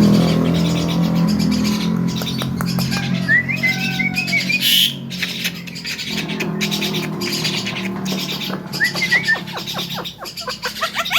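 Javan myna calling in harsh squawks and short rising chirps over a low steady hum, breaking into a rapid run of rising chirps, about four a second, near the end.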